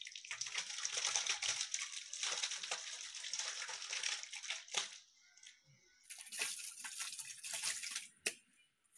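Wet raw beef chunks sliding out of a steel basin and plopping into a large pot of thick masala gravy, in two pours with a short lull about five seconds in.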